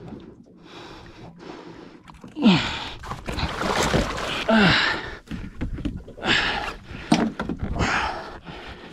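Hard breathing and short groans, each sliding down in pitch, coming every second or two, with bumps and knocks between them.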